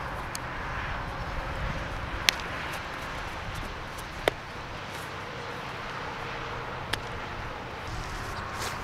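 Three sharp smacks over a steady outdoor hum, the first the loudest: a baseball being hit and popping into a leather fielding glove during ground-ball practice.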